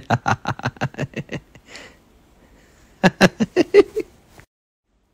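A man laughing aloud in quick 'ha-ha-ha' bursts: a run of about a dozen in the first second and a half, then a shorter run of about six around three seconds in.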